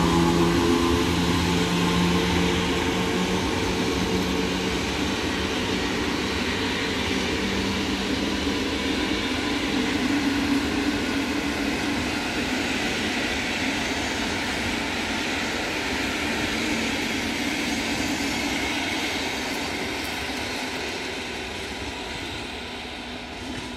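InterCity passenger train hauled by an EP09 electric locomotive departing: a steady hum from the locomotive fades in the first couple of seconds, then the coaches' wheels rolling on the rails make a steady rumble and hiss that slowly fades as the train pulls away near the end.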